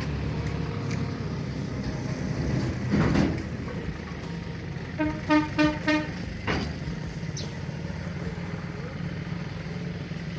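Rubbish-collection tractor's engine running steadily, with three short horn toots about five seconds in. Two brief whooshes sound around them.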